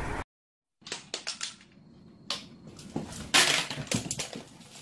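A cola bottle being handled: a run of separate sharp clicks and crackles, with a louder, longer rasp about three and a half seconds in.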